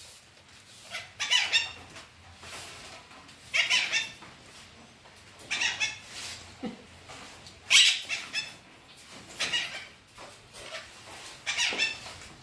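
Green parakeet squawking in short bursts, about one every two seconds: excited calls as it bathes in the rain.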